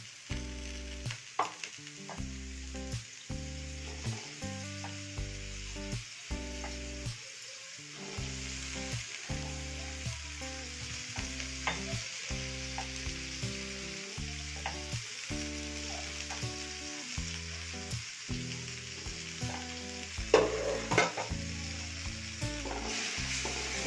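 Chopped garlic, shallot and chilli, then cut green beans, sizzling in hot oil in an aluminium wok, stirred with a wooden spatula that scrapes and clicks against the pan, with a louder flurry of scraping about twenty seconds in. Soft background music with a steady run of notes plays underneath.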